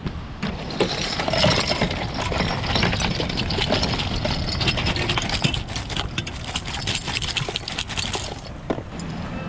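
Collected rubbish being shaken out of a bag into a wheelie bin: a continuous clatter of cans, bottles and bits of litter knocking and rattling against each other and the bin.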